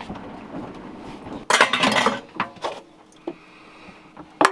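Dishes and glassware clattering, with one loud crash about a second and a half in, then a few lighter clinks and knocks.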